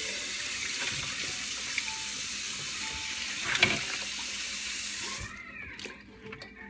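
Kitchen faucet running into a stainless steel sink, water splashing over a watermelon, with a single knock about three and a half seconds in. The running water stops a little after five seconds, leaving a few faint knocks.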